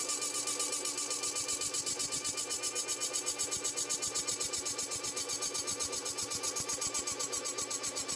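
Drill press spinning a bent winch shaft against a grinder, which rounds the shaft off. The sound is a steady, even pulsing, about eight beats a second.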